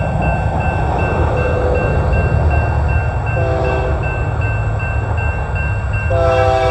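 Union Pacific freight locomotive's air horn sounding for a grade crossing: a short blast about three and a half seconds in and a long blast starting near the end, the close of the standard long-long-short-long crossing signal. Underneath are the low rumble of the approaching train and the crossing bell ringing steadily.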